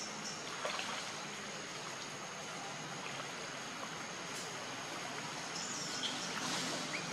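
Forest ambience: a steady, even hiss with a constant thin high-pitched tone running through it, and a few faint short chirps about a second in and again near the end.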